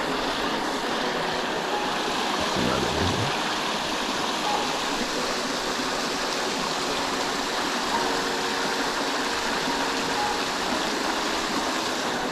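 River water running steadily over rocks, a constant rush of flowing water.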